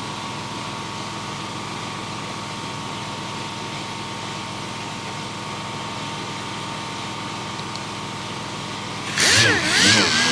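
Machine sander running steadily with an even hum, sanding down primer. Near the end a louder sound with wavering pitch cuts in over it.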